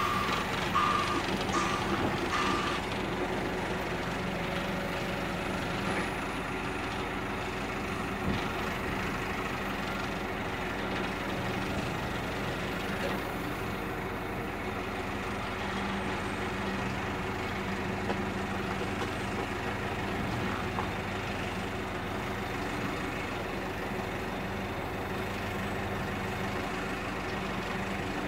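Hydrema 912ES articulated dump truck's diesel engine running steadily as it manoeuvres onto the rails for hi-rail mode. Its reversing alarm gives a few beeps in the first three seconds.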